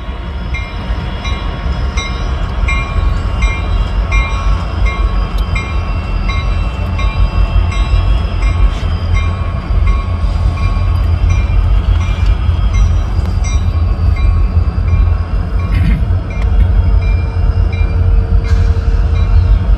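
CN diesel-electric freight locomotives passing slowly, their engines giving a heavy rumble that grows louder. A bell rings steadily through it at about three strokes a second.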